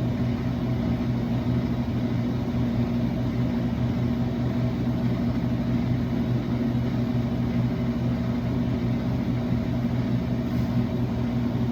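Dixie Narco 2054 vending machine running with a steady low hum.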